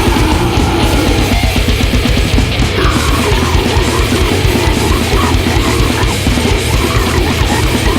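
Grindcore song at full tilt: heavily distorted guitars over fast, relentless drumming, loud and without a break.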